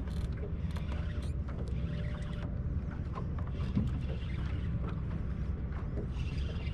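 Fishing reel being cranked against a load on a bent rod, its gears and drag making a run of small clicks and creaks, over a steady low rumble.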